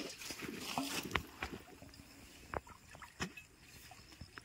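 A few faint, sharp clicks and taps at irregular moments, over a light hiss in the first second.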